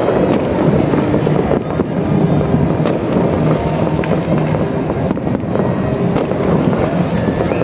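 Fireworks display going off: a dense, continuous run of bangs and crackles from rockets and aerial bursts.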